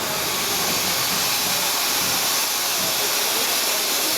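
Steam locomotive letting off steam: a steady, even hiss that holds unchanged throughout.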